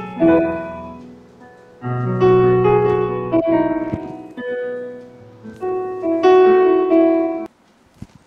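Electronic keyboard played with a piano sound: chords and a melody in short phrases that cut off suddenly near the end.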